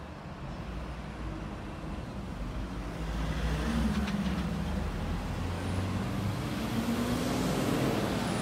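A heavy road vehicle's engine running close by over a low traffic rumble, growing louder from about three seconds in as it passes.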